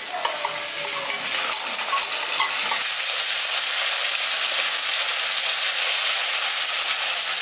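Whisked sour curd sizzling as it hits hot oil, ghee and spice paste in a kadai, while a wooden spatula stirs and scrapes it through; the frying hiss grows louder and steadier after about three seconds.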